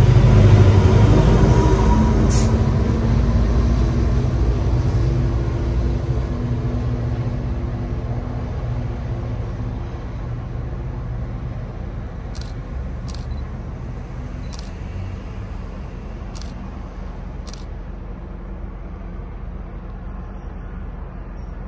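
A train going away: its low rumble is loudest at first and dies away steadily over about twenty seconds. A few short, faint high ticks come in the second half.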